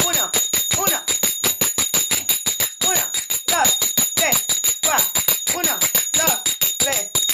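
Brass finger cymbals (crótalos, sagats) struck in a fast, even, continuous rhythm, about seven strikes a second, each clash ringing on a few steady high tones. The pattern fills each beat with four strikes.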